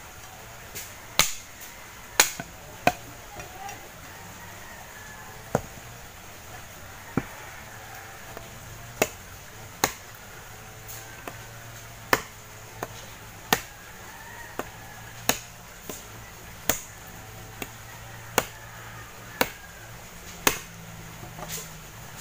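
Machete blows chopping into a wooden branch: sharp, short knocks at an uneven pace, roughly one a second, about twenty in all.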